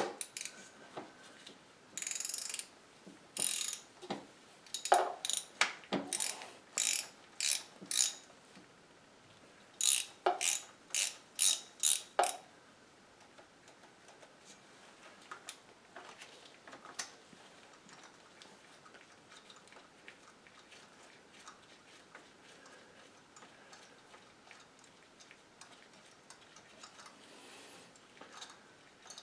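Ratchet wrench clicking in a series of short strokes as it backs a loosened spark plug out of its well on a Chevy Colorado engine. After about twelve seconds the strokes stop and only faint ticks remain.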